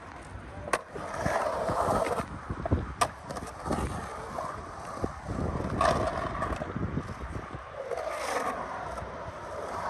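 Skateboard wheels rolling and carving across a concrete bowl, the rolling swelling and fading with each pass. Two sharp clacks of the board come about a second in and about three seconds in.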